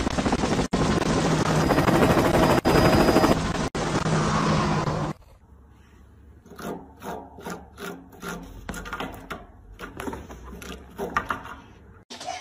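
A loud, dense clatter for about five seconds that cuts off suddenly. Then a cat scratching a sisal-rope scratching post, in quick repeated strokes of about three a second.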